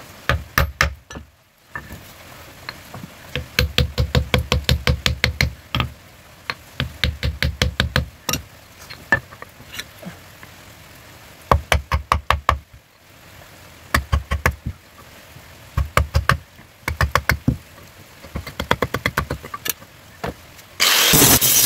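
A hammer striking the end of a wooden knife handle held upright on a stone block, seating the handle on the blade's tang. The blows come in quick runs of about four or five knocks a second, with pauses between. Near the end an angle grinder starts up with a steady loud whirr.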